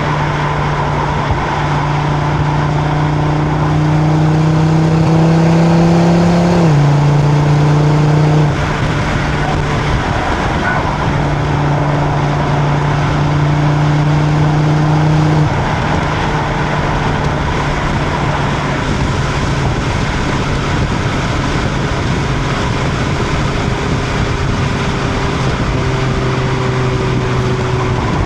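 Stock exhaust of a 2025 Audi RS3 with its turbocharged 2.5-litre five-cylinder engine, heard from behind the car at speed. The engine note rises slowly under light throttle, then drops in pitch at a gear change about seven seconds in. It eases off for a few seconds, pulls again, and settles into a steady cruise over road and wind noise.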